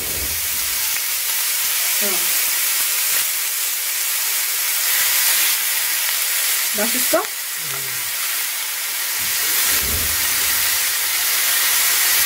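Thin slices of hanwoo beef sizzling steadily on a hot cast-iron grill pan.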